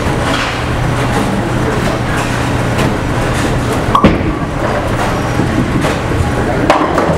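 Steady rumble of a bowling centre: balls rolling down the lanes and pins clattering, with a sharp knock about four seconds in and another near the end.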